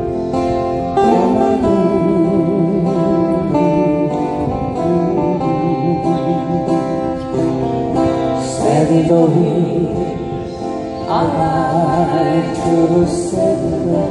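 Several acoustic guitars playing together in a passage without lyrics, with a wavering melody line carried over them that comes in about a second in.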